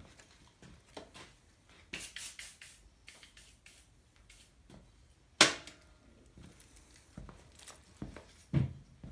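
Steel parts of a cam bearing installation tool being handled and fitted together: scattered clicks and light knocks, with one sharp metal clank about five seconds in that rings briefly, and another knock near the end.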